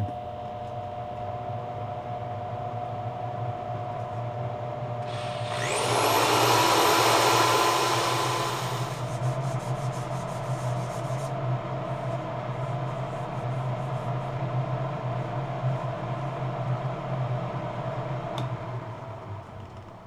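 Wood lathe running with a steady motor hum while sandpaper rubs on the spinning alder plate. About five seconds in, a louder hissing noise with a whine that climbs quickly in pitch runs for about three seconds, then stops. The lathe's hum stops near the end.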